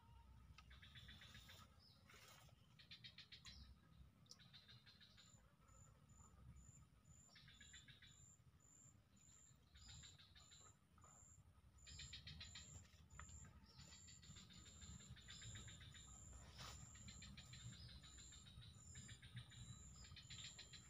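Faint insects trilling: pulsing trills that come and go in spells of a second or two, and from about five seconds in a high, short chirp repeating a little faster than once a second.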